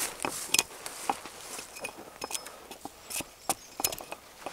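An axe striking a freshly cut birch sapling in a string of sharp, irregular knocks, a few with a brief ring.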